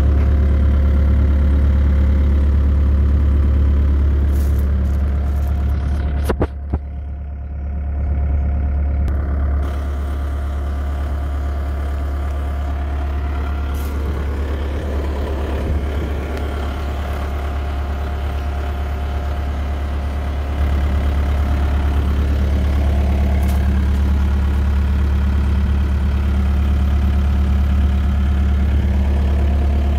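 Diesel engine of a 2006 Bobcat 331G mini excavator idling steadily, with a brief dip and a sharp click about six seconds in and a little louder again from about two-thirds through.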